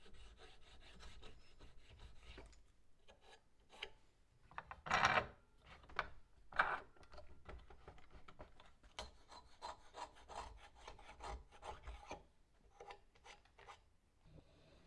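Hand router plane scraping and shaving across wood in short strokes, with two louder strokes about five and six and a half seconds in. Later, lighter rubbing and clicks of wood on wood as the workpieces are handled and the wooden handwheels of a screw vise are turned.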